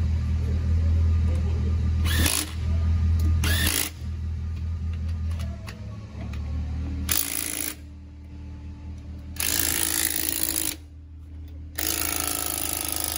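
Cordless impact wrench run in five short bursts, the longest about two seconds near the end. A vehicle engine idles steadily underneath during the first half.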